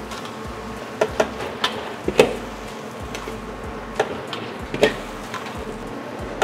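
Metal spatula knocking and scraping against a wok while stir-frying a large batch of vegetables: about seven irregular clanks, the loudest about two seconds in, over a steady hum and hiss.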